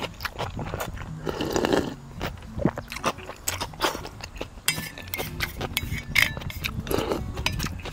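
Close-up eating sounds: noodles being slurped and chewed, with many small clicks of utensils against the bowl.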